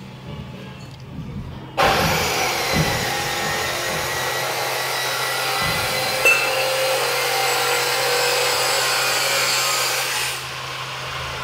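A power tool or similar machine runs steadily, starting abruptly about two seconds in and cutting off just before the end. A steady low hum continues underneath.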